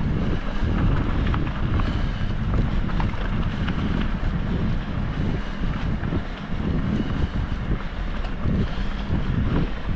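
Wind buffeting the microphone: a continuous low rushing noise that swells and dips irregularly.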